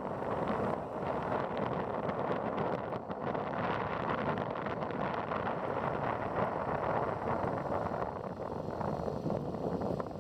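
Wind rushing over the microphone of a moving motor scooter, a steady rushing noise with vehicle and road noise underneath.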